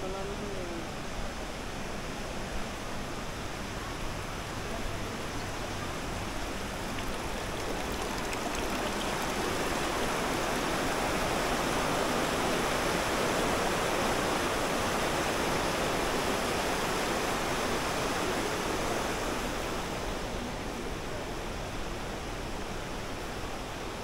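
Water rushing in a stream with small cascades, a steady hiss that swells louder through the middle and then eases off again.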